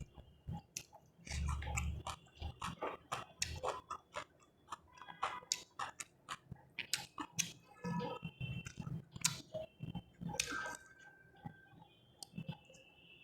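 Close-miked chewing and mouth sounds of a person eating fried rice with chicken and vegetables: irregular wet smacks, clicks and crunches.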